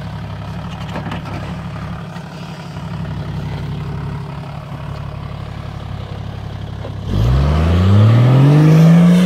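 Toyota Land Cruiser 80-series engine running steadily at low revs, then about seven seconds in revving up sharply, its pitch rising and then holding high, as the 4x4 powers up a steep dirt climb.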